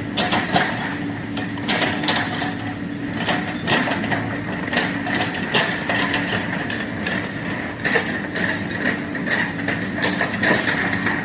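Backhoe loader at work: its engine runs steadily under a constant drone and whine, with frequent clanks and rattles of metal throughout.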